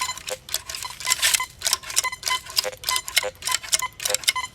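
Teknetics Patriot metal detector giving short, rapid chirps and clicks, about two a second, as its coil is swept back and forth over buried test targets.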